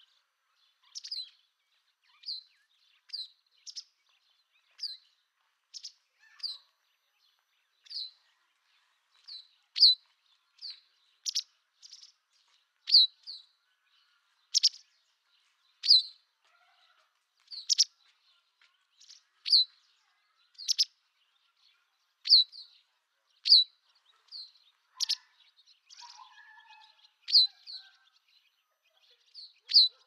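White wagtail (Motacilla alba) calling: short, sharp, high chirps, each a quick downward flick, repeated about once a second at uneven intervals.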